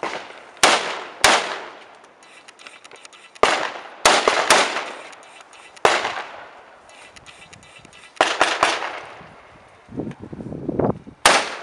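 About ten gunshots fired at cardboard targets, in singles and quick pairs or triplets with pauses between, each shot sharp and followed by a ringing echo that fades over about a second.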